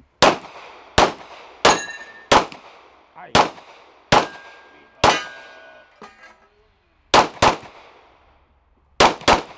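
Handgun shots fired one after another, about eleven in all, at an uneven pace with two quick double shots in the second half. Some shots are followed by the ringing clang of a struck steel target plate.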